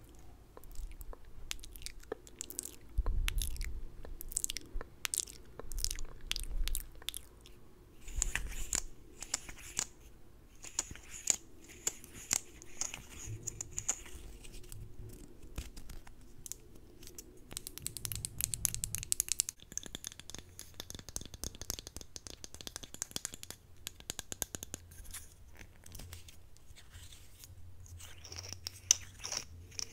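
Close-miked ASMR mouth sounds: irregular wet clicks and lip smacks, with stretches of soft hissing.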